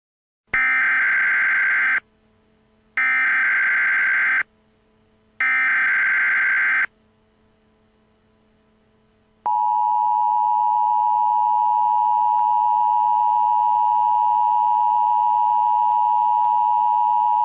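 Emergency Alert System header: three short bursts of screeching digital data, then, about nine and a half seconds in, the long steady two-tone EAS attention signal.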